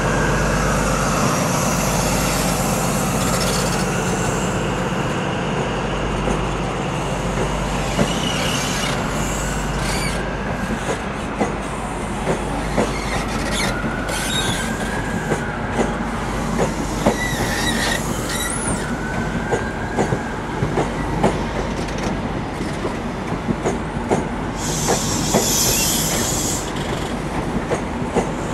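High Speed Train (InterCity 125) pulling out of a station: diesel power car engine drone with wheels clicking over rail joints and points, quickening as it gathers speed. The wheels squeal several times, each squeal rising and falling.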